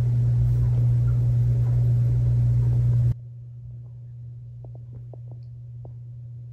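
Steady low electrical hum with a hiss over it, dropping sharply to a much fainter hum about three seconds in. Later, a few faint light taps of a stylus on an iPad screen.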